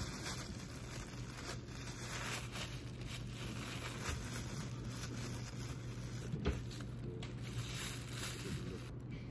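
Faint rustling and light handling noises with a few small knocks, over a steady low hum.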